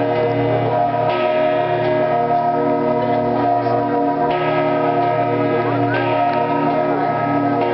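Church bells of St. Mark's bell tower ringing, struck about every two to three seconds, each stroke's tones ringing on and overlapping the next into a continuous hum.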